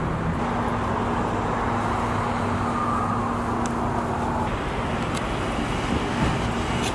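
Steady road-traffic and vehicle noise, with a low steady hum that stops about halfway through and a few faint clicks.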